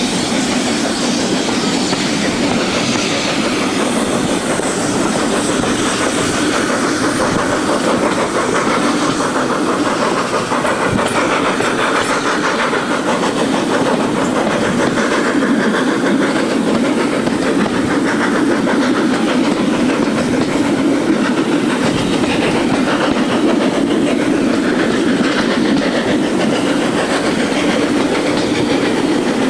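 Steam-hauled passenger train running, heard from an open carriage window: a steady rumble and clatter of the coaches' wheels on the track, with the exhaust of the three locomotives heading the train mixed in.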